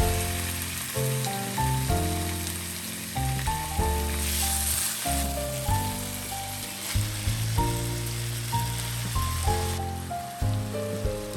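Background music with a run of melodic notes over a steady hiss.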